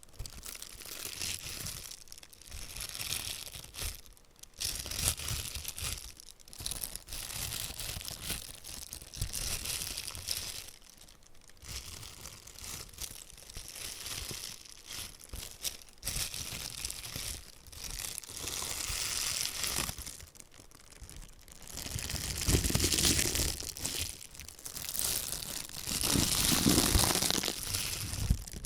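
Disposable plastic gloves being rubbed, scrunched and crinkled by the hands close to the microphone, in quick irregular bursts with short pauses. It gets louder and fuller over the last several seconds.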